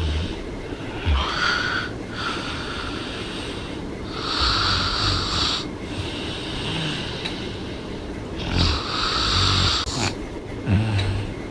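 A woman snoring with her mouth open: a low snore on each breath about every four seconds, with airy breath noise in between.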